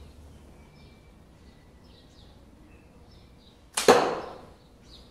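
Slingbow rifle shooting an arrow into a foam block target about four seconds in: one sharp double crack, as the bands are released and the arrow hits, that fades within half a second. Small birds chirp faintly in the background.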